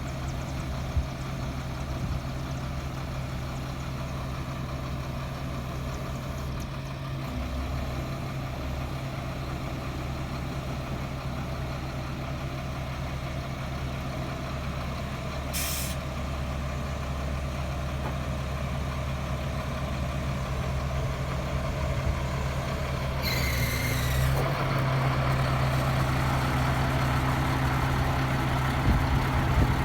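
The truck's Caterpillar 3126 diesel engine runs steadily, with two short hisses of released air, one about halfway through and a longer one about three-quarters through. The engine gets a little louder after the second hiss.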